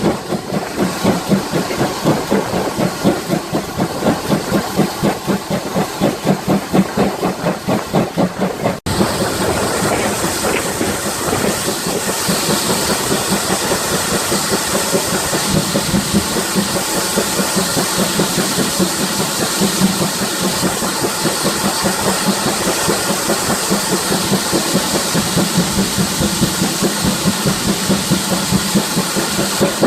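Exhaust of GWR 5600 class 0-6-2 tank locomotive 5619 chuffing in a steady quick rhythm as it works a train away and up the grade. About nine seconds in, the sound cuts out for an instant, and then a loud steady hiss of steam takes over, with the beats fainter beneath it.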